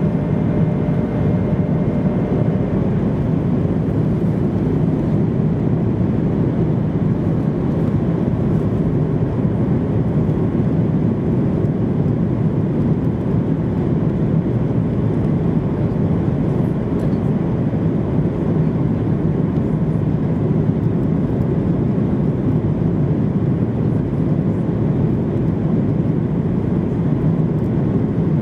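Steady cabin noise inside a Boeing 737-800 on descent with its flaps extended: airflow over the wing and the CFM56-7B engines making an even, low rushing hum. A faint high whine fades out about two seconds in.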